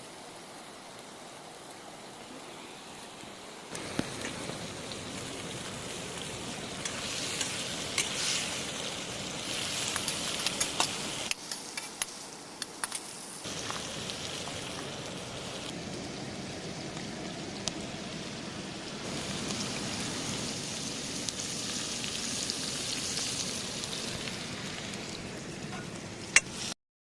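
Cumin seeds sizzling in hot oil in an iron kadhai, a steady frying hiss with scattered sharp pops and crackles. It gets louder about four seconds in.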